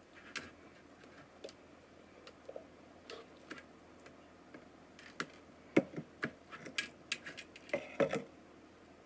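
Irregular light clicks and taps from hands handling things at close range, getting busier and louder about five seconds in.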